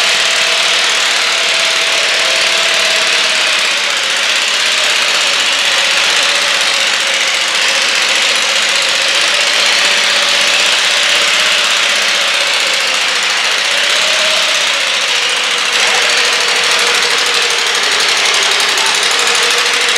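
International Harvester garden tractor engine running hard as it pulls under load, a loud, steady engine sound with a tone that slowly sags in pitch over the last few seconds.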